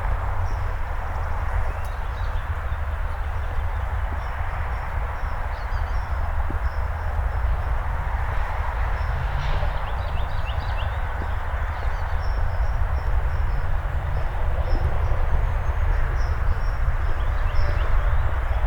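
Footsteps of a person walking along a neighbourhood street, over a steady low rumble, with small birds chirping faintly throughout.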